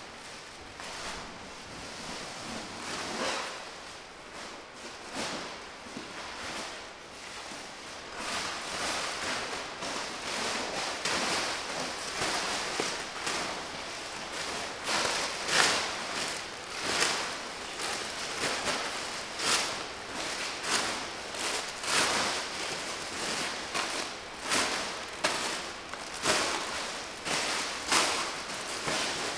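Plastic shipping bags and packaging rustling and crinkling as they are handled, in irregular crackles that come thicker and louder after the first several seconds.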